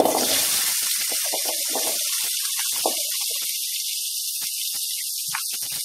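Small onions (shallots) dropped into hot sesame oil in an aluminium kadai, sizzling the moment they hit: a sudden start to a steady frying hiss that slowly eases.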